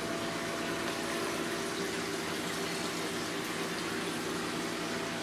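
Steady rush of circulating water with a faint low hum from a reef aquarium's pump and filtration.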